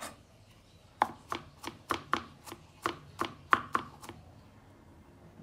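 Kitchen knife chopping garlic on a wooden cutting board: a quick run of sharp knocks, about four a second, starting about a second in and stopping a little past the middle.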